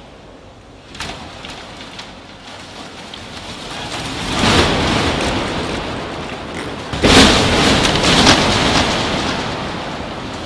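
Full-scale two-story wooden house shaking and collapsing on an earthquake shake table. A rumble of the shaking builds, with a loud crash of the structure giving way about four and a half seconds in and a second, louder crash about seven seconds in, then fades.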